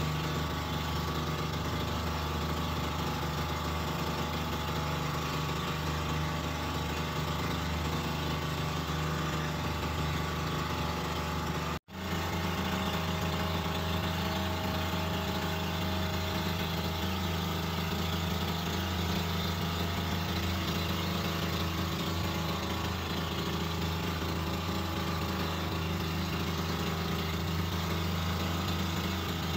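Engine of a bangka outrigger boat running steadily underway, a constant drone. The sound drops out for an instant about twelve seconds in.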